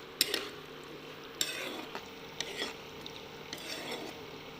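Coarsely cut onions frying lightly in oil in a pan, sizzling as they are stirred, with a few sharp clicks of the stirring utensil against the pan.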